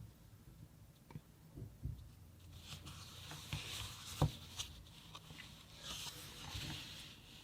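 Handling of the phone's box and packaging: light rustling with scattered small clicks and knocks, and one sharper knock about four seconds in.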